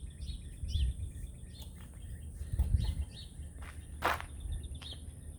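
Small birds chirping in many short, high calls over an uneven low rumble, with a brief bump a little after four seconds in.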